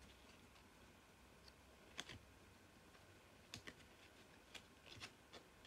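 Near silence with a few faint, short clicks and taps, scattered a second or so apart: trading cards being handled and set down.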